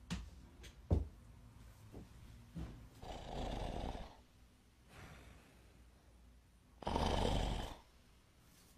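A door latch clicks twice in the first second as a bedroom door is opened. Then a person snores twice, each snore about a second long, the second louder.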